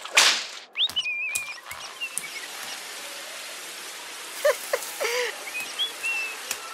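Cartoon sound effects: a quick whoosh, then a shower running with a steady hiss of spraying water. Short whistled notes come about a second in and again near the end, with a few brief pitched squeaks in between.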